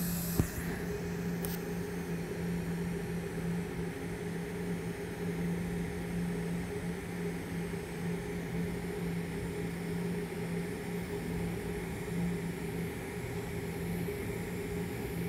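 DC TIG welding arc from an Everlast Powertig 250EX at 175 amps, burning steadily on 304 stainless steel pipe as a bead is laid: an even hum and hiss, with a short click near the start as the arc strikes.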